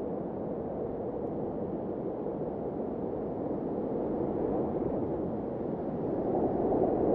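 Intro sound effect: a steady, muffled rushing noise that swells slightly near the end.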